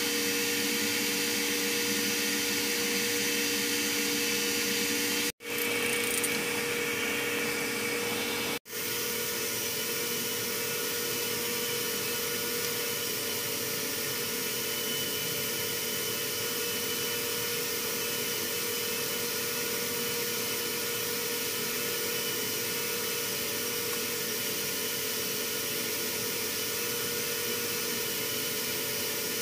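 Arc welding on a steel pipe against the steady rush and hum of engine-room machinery. The sound cuts out sharply twice, about five and eight and a half seconds in.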